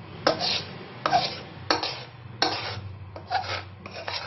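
A utensil scraping and knocking against a pan about six times as sticky, foamy honeycomb toffee is scraped out of it.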